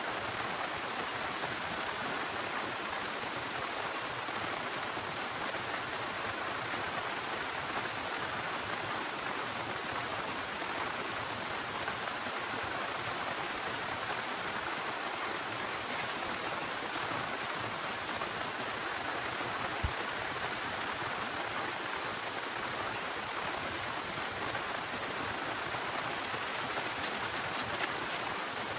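Heavy rain falling steadily, an even hiss with a few faint ticks near the end.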